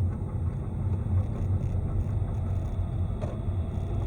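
A car driving, with a steady low hum and road rumble.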